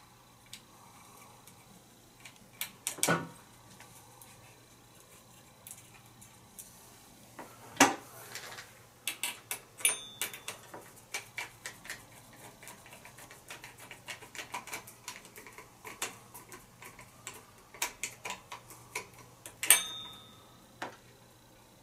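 Small metal clicks and taps from hands and a screwdriver working on a ceiling fan's light kit, screws being driven in. The clicks come several a second for most of the second half, with a few louder knocks near the start, just before the middle and near the end.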